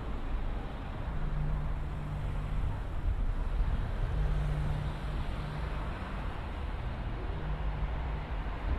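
Street traffic: car engines running along a road in a steady wash of traffic noise, with a low engine hum that comes and goes.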